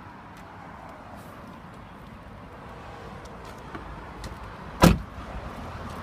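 A car door shutting with a single heavy thud about five seconds in, after a few faint clicks of handling.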